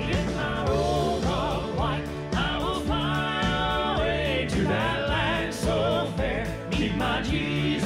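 A Southern Gospel male vocal quartet singing, with voices holding wavering notes over musical backing.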